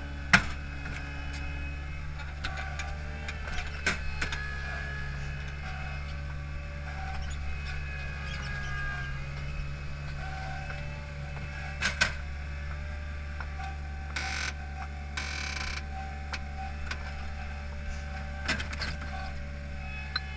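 Hydromak paving machine's engine running steadily as it drives, with sharp metallic clanks from the paving clamp and its load now and then, the loudest just after the start and about midway, and a short hiss about three-quarters through.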